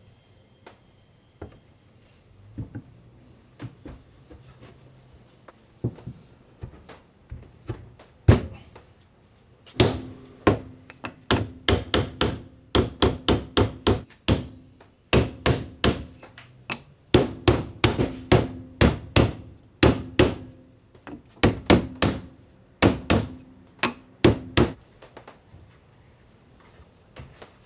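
Hammer striking a wooden block held against a castle joint of a wooden table frame, knocking the joint together. A few light knocks come first, then quick runs of sharp strikes from about ten seconds in until shortly before the end, many with a short ring.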